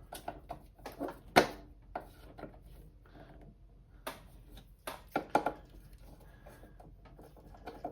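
Small parts being handled during bench disassembly: scattered clicks and taps of screws, feet and the meter case. The sharpest knock comes about a second and a half in, and a quick cluster of clicks comes around five seconds in.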